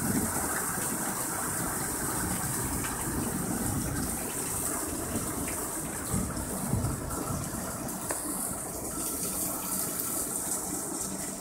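Torrential rain pouring down steadily in a thunderstorm, a dense rush of falling water.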